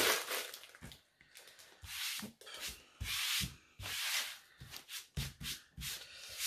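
Hands rubbing and brushing across a surface while items are handled, in a series of short scraping strokes, the longest ones about two to four seconds in.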